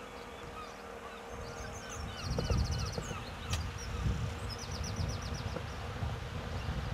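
Birds calling over the shore in many short chirps and quick chattering trills. Wind buffets the microphone with a low rumble from about two seconds in.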